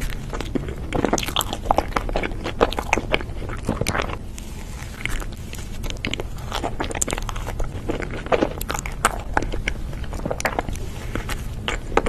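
A person biting into and chewing a soft red velvet cream-filled sandwich, with many small wet clicks and crackles throughout, over a steady low hum.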